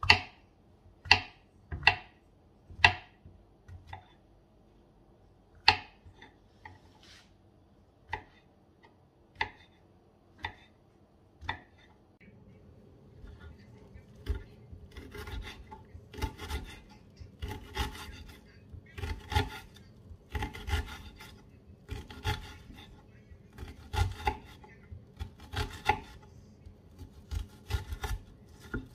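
Kitchen knife cutting on a wooden cutting board. First a mushroom is sliced, each cut ending in a sharp tap of the blade on the board. About twelve seconds in, this gives way to an onion being chopped in steadier strokes, roughly one a second.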